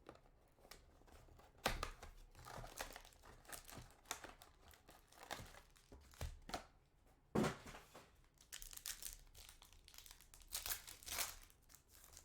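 Trading card pack wrappers being torn open and crinkled in irregular bursts of rustling, with the sharpest tears near 2 and 7 seconds in.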